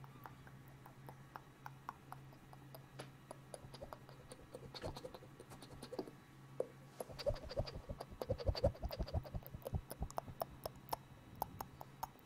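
Close-miked ASMR mouth sounds: scattered wet clicks and tongue pops. About seven seconds in they turn into a dense flurry with a run of soft low thumps, lasting about three seconds before thinning out to separate clicks again.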